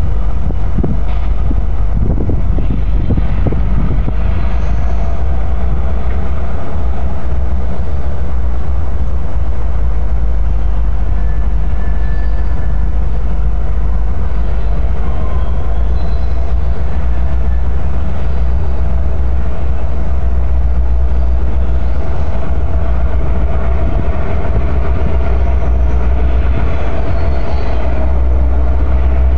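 Two Union Pacific GP38 diesel locomotives, EMD two-stroke V16 engines, running as they creep slowly along, their engine hum growing louder toward the end. Heavy wind buffets the phone's microphone throughout.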